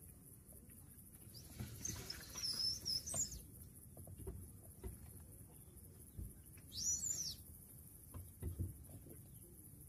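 Wild bird calls: a high warbling phrase about two seconds in and a shorter call that rises and falls near seven seconds. Faint low knocks from the kayak being handled on its trailer come in between.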